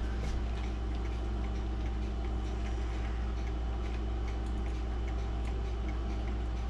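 Mechanical clock ticking over a steady low hum.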